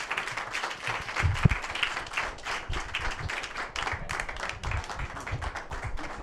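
Small audience applauding, a dense patter of hand claps that thins out near the end, with a low thump about a second and a half in.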